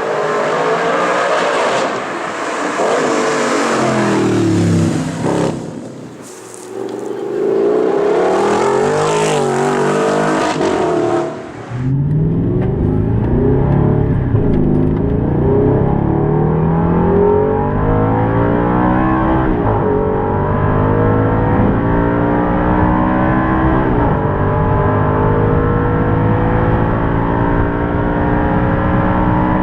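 Straight-piped Audi R8's 4.2-litre V8 revving, its note falling and rising. About twelve seconds in the sound changes to a muffled, deeper engine note that climbs slowly and steadily, with a few brief dips.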